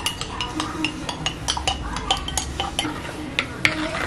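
A plastic baby spoon scraping purée out of a glass baby-food jar into a bowl, with quick irregular clicks and taps of the spoon against the glass, then stirring the purée in the bowl near the end.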